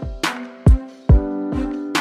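Background music with a steady beat: low kick drums that drop in pitch, sharp snare hits and held synth chords.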